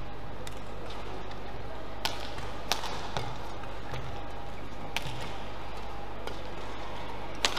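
Badminton rally: sharp cracks of racket strings striking the shuttlecock, about five hits a second or two apart, the loudest near the end, over a steady low hall hum.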